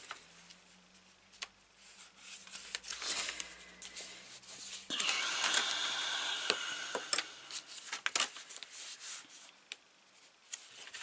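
Stiff black cardstock being handled and folded on a cutting mat: soft paper rustles and small taps, with a longer scratchy rubbing stretch about five seconds in as a fold is creased with a tool drawn along the edge.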